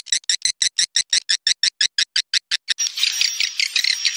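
Swiftlet lure recording made from roosting-swiftlet calls: a rapid, even train of sharp high chirps, about six a second, changing near three seconds in to a dense twittering chatter with a thin steady high tone running through it. It is a call played on swiftlet farms to draw swiftlets into a nesting house.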